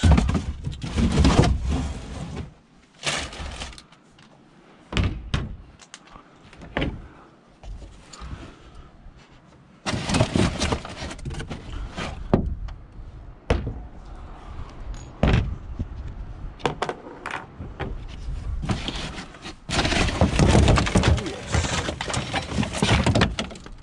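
Irregular knocks, bangs and clatter, with stretches of rustling and scraping between them.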